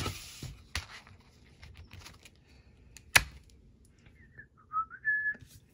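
A few sharp clicks and taps as a ring-bound planner is handled, the loudest about three seconds in, followed by several short high chirps near the end.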